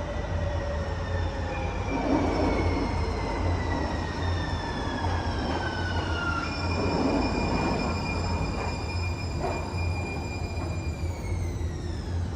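A Siemens S200 light-rail vehicle arriving and slowing. Its electric traction drive whines in several tones that glide down in pitch as it slows, jumping to a new set of tones about halfway through that fall again near the end, over a steady low hum.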